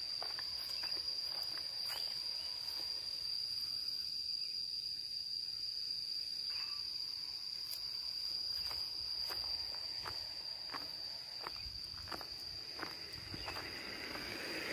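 Insects droning in one steady, unbroken high-pitched tone, with the soft irregular footsteps of someone walking on concrete and dirt.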